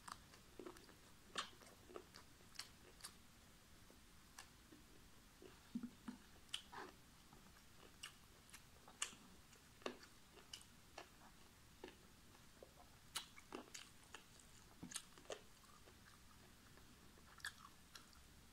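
Quiet mouth sounds of someone eating with their fingers: soft chewing with irregular wet clicks and lip smacks, a few every second or two.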